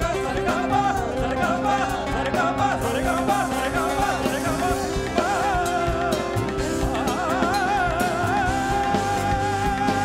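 Live fusion rock band playing: a male voice sings a wavering, ornamented melody over bass, electric guitar, drum kit and tabla, then settles into one long held note near the end.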